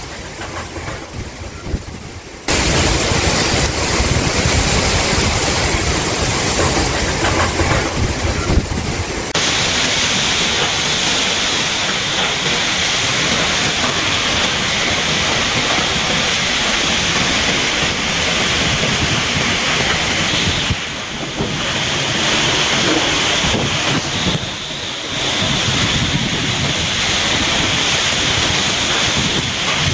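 Hurricane wind and rain: a loud, steady rush of storm noise. About two seconds in it jumps louder, with gusts buffeting the microphone for several seconds, then gives way to a hissier, more even rush.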